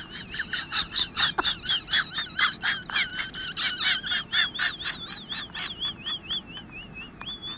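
Rapid high-pitched chirping calls, about five a second, changing about four seconds in into a wavering, warbling whistle.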